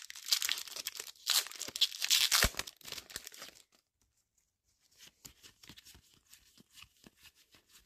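Foil wrapper of a Pokémon TCG Temporal Forces booster pack being torn open, crackling and crinkling for about three and a half seconds. After a short pause come faint soft clicks as the cards are slid out and flipped through.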